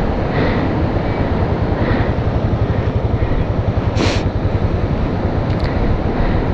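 Hero Honda CBZ Extreme's single-cylinder motorcycle engine idling with a steady pulsing beat over a constant hiss. A single sharp click about four seconds in.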